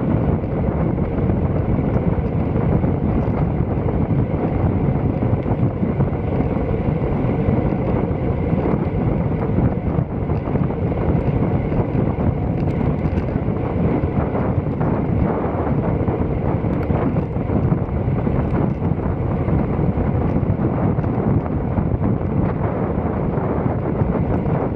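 Steady wind rushing and buffeting over the microphone of a camera on a moving bicycle, a low, unbroken rumble.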